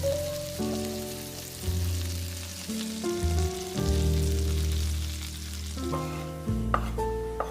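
Food sizzling as it fries in a pan, under background music of held chords that change every second or so. There is a light knock near the end.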